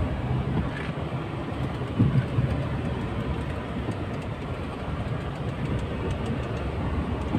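A Tata Nano's small rear-mounted two-cylinder engine running as the car drives slowly over a rough, unpaved track, heard from inside the cabin as a steady engine and road rumble. There is a single thump about two seconds in.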